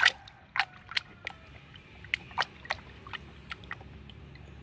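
A hand splashing and sloshing about in a tub of soapy water, a quick irregular run of splashes, loudest at the start and thinning out toward the end.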